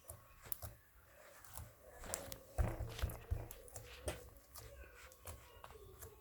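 Slime being squished and handled by hand, with irregular sticky clicks and small crackles, busiest about two to three seconds in.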